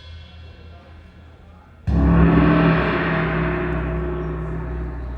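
Recorded music played over hi-fi loudspeakers. A deep drum hit fades out, then a single loud gong strike about two seconds in rings on with low sustained tones and slowly decays.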